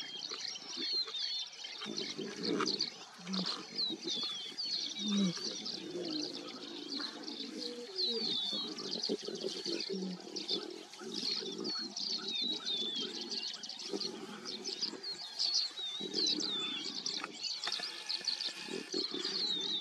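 Birds chirping all through with many short, quick high notes, over irregular crunching and tearing sounds of lion cubs and a lioness feeding on a warthog carcass.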